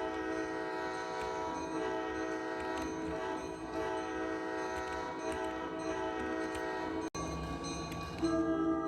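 Coaster commuter train cab car air horn sounding a long, steady multi-note chord. A brief cut comes about seven seconds in, and the horn sounds again, louder, near the end.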